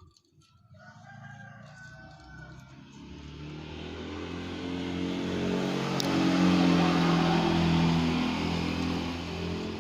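A motor vehicle's engine passing by, growing louder to a peak about two-thirds of the way through, then easing off.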